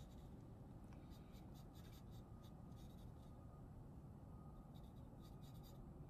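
Faint pencil strokes scratching on paper: short quick strokes in small clusters, sketching feathers.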